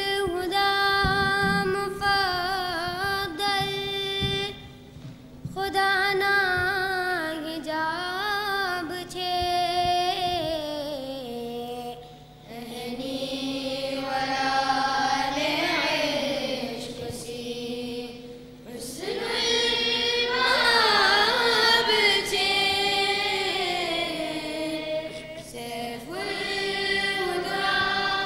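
Group of boys singing madeh, Dawoodi Bohra devotional poetry, together in unison. The long, ornamented, wavering phrases are broken by short pauses for breath.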